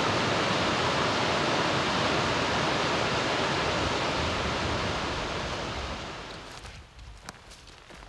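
A steady rush of flowing water that fades out about six to seven seconds in.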